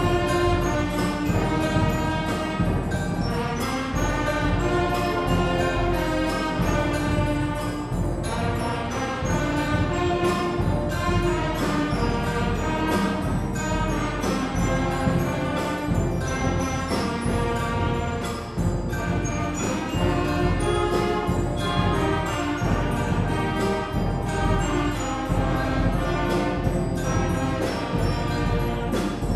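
A beginners' concert band of brass, woodwinds and drums playing a tune with a steady beat, the phrases broken by short gaps every few seconds.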